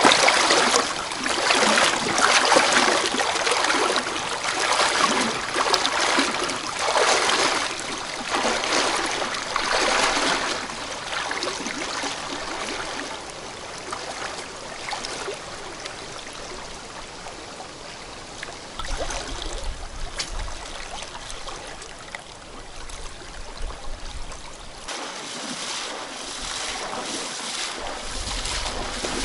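A person wading through a shallow, fast river in waders: splashing strides, loud at first and fading into the steady rush of the current, then building again near the end as the wader comes back.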